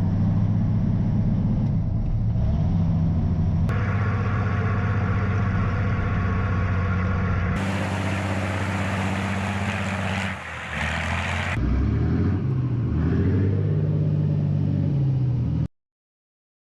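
Heavy truck engine running with a steady low drone, heard across several edited shots, with a stretch of hiss in the middle; the sound cuts off abruptly near the end.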